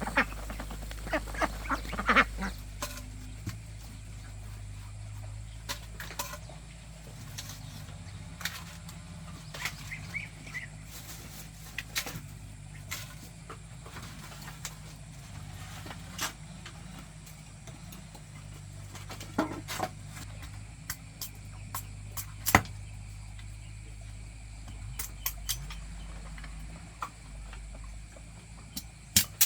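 Ducks quacking for the first couple of seconds. After that come scattered clicks and knocks over a steady low hum, the loudest knock about three quarters of the way through.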